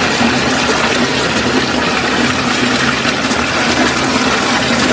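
Steady, loud rush of a small waterfall.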